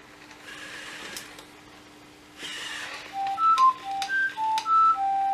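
Sony Aibo ERS-311 Latte robot dog's electronic beeps: a quick run of about eight short pure tones at changing pitches, the last held for about a second. Before them, brief faint whirring from its moving joints.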